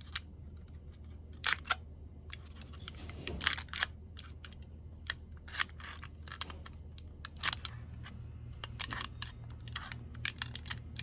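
Handwriting strokes: a writing tool scratching across a surface in short, irregular strokes, over a low steady hum.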